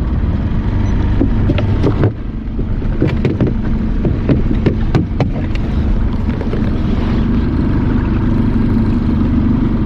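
Small fishing boat's engine idling, a steady low hum, with scattered knocks and clicks from the boat and gear; the sound changes abruptly about two seconds in.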